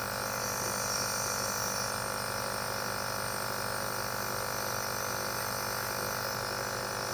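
Small electric motor buzzing steadily, most likely the compressor of a home nebulizer switched on for a night-time cough.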